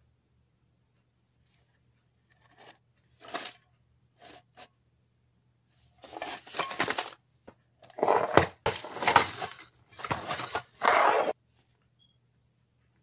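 Hands in thin plastic disposable gloves handling Pringles cans: crinkling rustle and scraping in a series of bursts. The bursts start a few seconds in and are loudest in the second half, stopping near the end.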